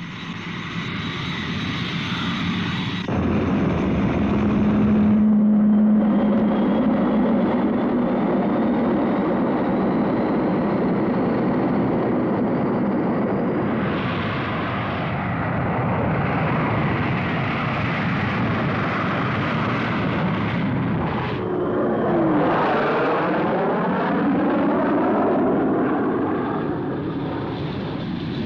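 Military jet engines running loud and steady as jets roll and take off, with a faint rising whine in the first half. About two-thirds of the way through a jet passes close by, its sound sweeping down and back up as it goes over.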